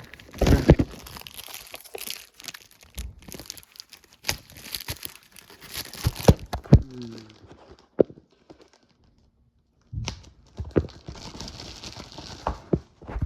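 Plastic shrink-wrap seal being torn and peeled off a DVD case, crinkling and crackling in fits and starts, with a pause of a couple of seconds past the middle.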